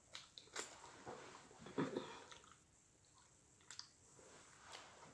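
Faint close-miked chewing: wet smacks and clicks of a mouthful of fried rice and shrimp being chewed, loudest about two seconds in.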